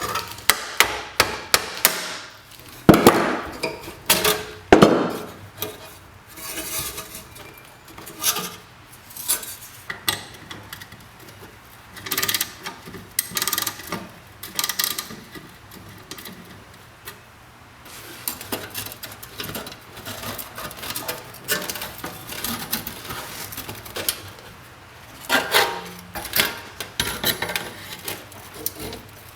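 Hand-tool work on a small hard object: a run of sharp knocks and taps, loudest in the first few seconds and again near the end, with stretches of scraping and rubbing in between.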